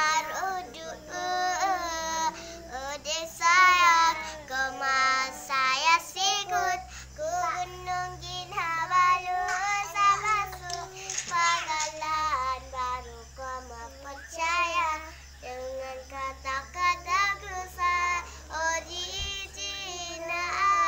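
Young children singing a simple song, high voices carrying a bending melody in short phrases, over a steady low hum.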